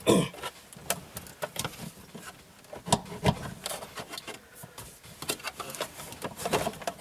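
Irregular clicks, small knocks and rubbing of parts being handled and worked into place while a car's short shifter assembly is fitted.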